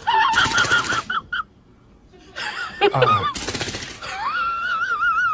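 Paper crinkling and crackling in short bursts as a kitten pounces on and bats at it. About four seconds in, a long high-pitched wavering cry begins.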